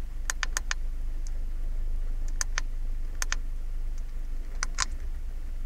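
Sharp plastic clicks of buttons being pressed on a handheld OBD-II code reader, about ten presses in quick pairs and one short run of four. Under them is the steady low hum of the Renault Clio's engine idling.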